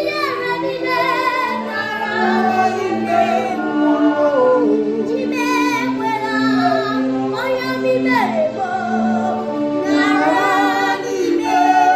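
Gospel song: a female voice sings a melody with vibrato over held backing chords.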